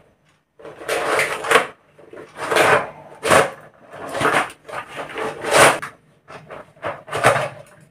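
Collapsible telescopic plastic camping stool being pulled open by hand. Its interlocking plastic sections slide out in a series of about seven separate scrapes, with a sharper click in the middle, as the stool extends to full height.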